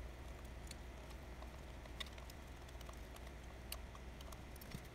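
A few faint clicks and small scrapes of a precision screwdriver working the screws of a lens's F-mount ring, over a low steady hum.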